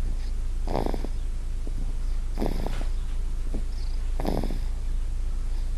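A one-year-old girl snoring in her sleep: three rattly snores at an even pace, about one every second and a half to two seconds, over a steady low hum.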